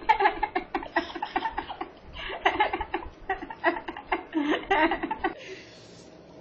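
A young man laughing hard in quick, repeated bursts. The laughter stops about five seconds in, leaving only faint breathing.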